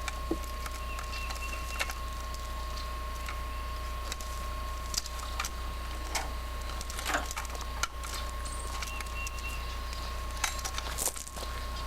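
Steady low hum and a faint steady whistle-like tone from an old camcorder recording, with scattered small clicks and knocks, a cluster of them near the end.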